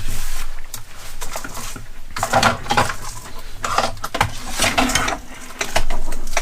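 Hex driver and small metal parts of an RC car's front end clicking and clinking as the assembly is handled and its bolts worked loose, in irregular bursts.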